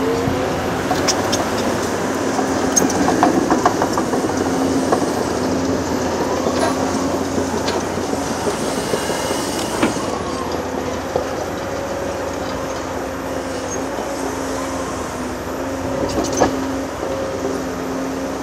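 Heavy Caterpillar earthmoving machines at work: a crawler dozer and a 390D excavator with their diesel engines running steadily, and the clanking of steel crawler tracks. Knocks and clatter are busiest in the first few seconds.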